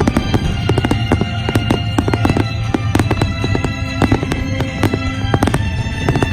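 Aerial fireworks going off in quick succession, many sharp pops and bangs, with music playing underneath.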